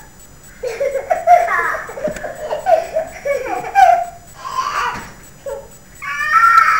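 Young children laughing and giggling in short, bubbling bursts, with a longer wavering call starting near the end.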